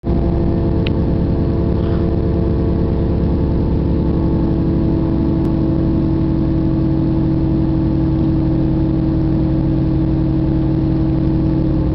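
Diesel railcar engine running at a steady speed, heard from inside the passenger car as a steady drone over the low rumble of the moving train.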